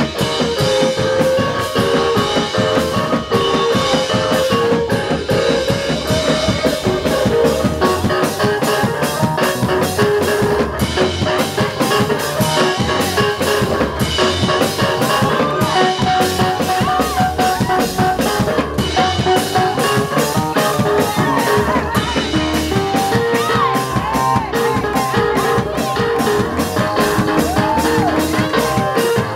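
Live gospel praise-break music: a drum kit playing a fast, steady beat under a keyboard, with handclapping.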